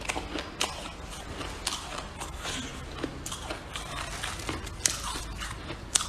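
Freezer frost being bitten and chewed close to the microphone: crisp, irregular crunches several times a second, with two sharper bites near the end, over a low steady hum.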